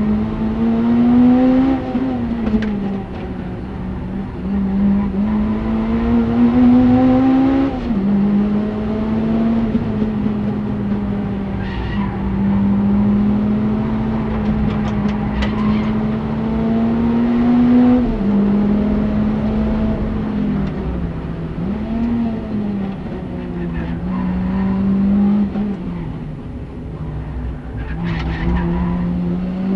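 Honda Civic Type R EP3's 2.0-litre four-cylinder engine heard from inside the cabin while being driven hard on a race track. It revs high, its note climbing steadily and then dropping sharply several times, and holds a high steady pitch for long stretches in between.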